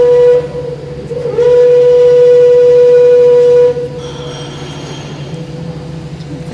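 Electric forklift's hydraulic pump motor whining at one steady pitch while the hydraulics are worked. It breaks off for about a second near the start, runs again for over two seconds, then cuts off sharply. A lower steady hum continues underneath.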